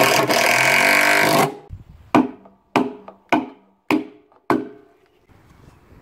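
Cordless drill running loudly for about a second and a half, driving a bolt into the flange of a washing machine drum, then stopping short. After it come five sharp knocks, about 0.6 s apart, each ringing briefly.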